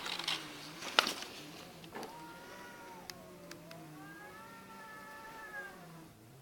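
Two cats in a standoff, yowling at each other: long, drawn-out wavering howls that rise and fall in pitch over a low steady growl. There is a sharp short crack about a second in.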